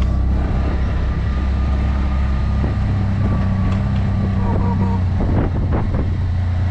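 Tuk-tuk (auto-rickshaw) engine running steadily as it drives along the road, heard from inside the open cab.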